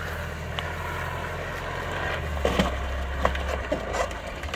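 Wooden seesaw obstacle cracking and splintering several times as an off-road vehicle drives onto it and breaks it, with the vehicle's engine running low and steady underneath.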